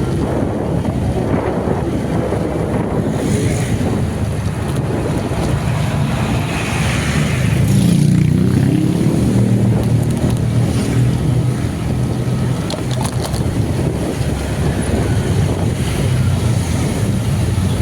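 A vehicle engine running steadily on the move, with wind noise on the microphone; the engine note rises a little about seven seconds in and holds.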